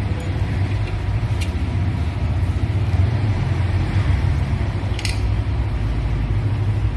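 Bajaj Pulsar RS200 single-cylinder engine running steadily, with a couple of sharp clicks over it; the bike is in for an engine noise problem.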